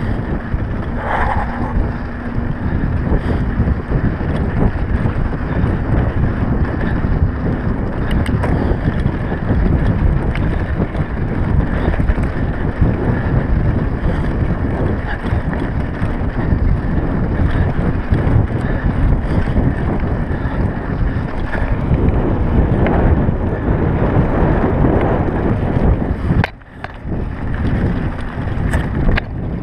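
Mountain bike rolling fast over a rough dirt track, with steady rattling from the bike and wind buffeting the handlebar camera's microphone. The noise drops away briefly near the end.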